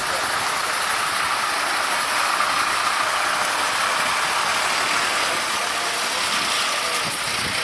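Fire engines idling: a steady engine noise with no siren.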